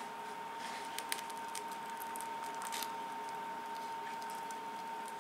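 A few faint crackles and clicks as a knife presses into the crisp, browned skin of a freshly roasted chicken, over a faint steady high whine.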